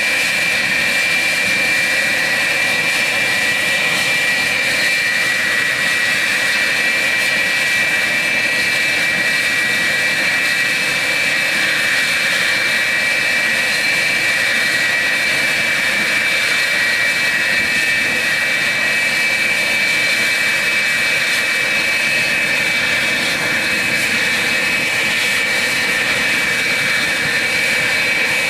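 F-4F Phantom II's twin J79 turbojets running steadily at idle: a rushing noise with a high, steady whine.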